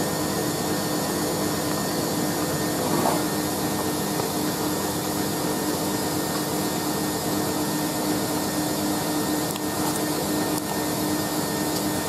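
Hoover A3060 Electronic 1100 washing machine spinning at a steady speed on its slow spin option: an even motor hum and whine with no pauses.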